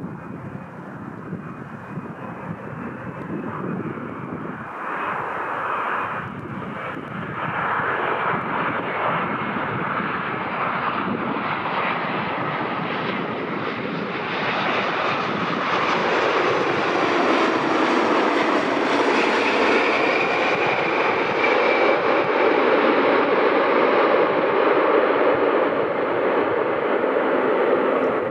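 Boeing 787 Dreamliner's jet engines during landing: a continuous engine noise that grows steadily louder as the airliner approaches, flares and comes onto the runway, loudest in the second half.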